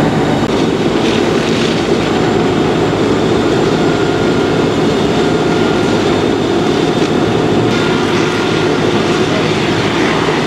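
Fire engines running their pumps to feed the hose lines and aerial ladder stream: a loud, steady engine drone with a rushing noise over it.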